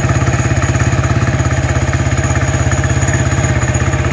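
Supercharged Yamaha Force 155 scooter's single-cylinder engine idling steadily with an even, rapid beat, and a steady high-pitched whine above it.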